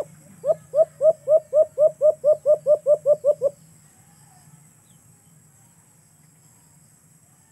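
Dove calling: a rapid, even run of about thirteen short, hooked coos, about four a second, that lasts some three seconds and then stops.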